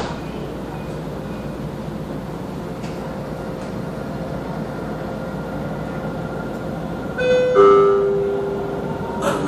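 Steady running noise inside a moving Dubai tram car. About seven seconds in, an onboard two-note falling chime sounds, a short higher note and then a longer lower one; it is the loudest sound.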